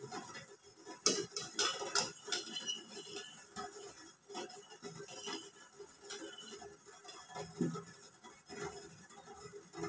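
Stainless steel steamer lid clinking and knocking against the pot rim as it is lifted and set back on. A quick run of sharp clinks comes about a second in, followed by scattered lighter knocks.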